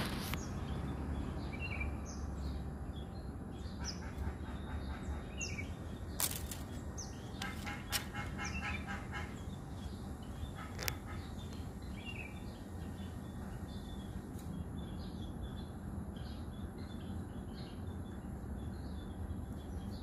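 Birds calling intermittently with short high chirps, including a couple of brief rapid call series, over a steady low background rumble, with a few sharp clicks.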